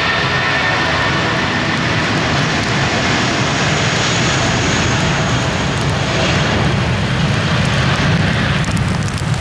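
Airbus A320's twin jet engines at takeoff thrust as it accelerates down a wet runway: a loud, steady rush.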